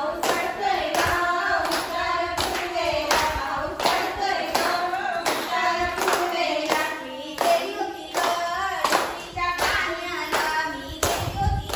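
A group of women singing a song together with steady hand-clapping in time, about two claps a second.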